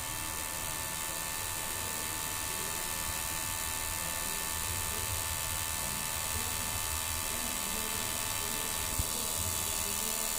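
Ola electric scooter charger running with a steady electrical hum and fixed high-pitched whine, the abnormal noise that marks a charger fault. A single sharp click about nine seconds in.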